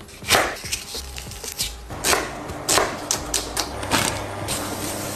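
Kitchen knife chopping an onion on a wooden cutting board: a series of irregular sharp knocks as the blade strikes the board. Background music with a steady bass line plays under it.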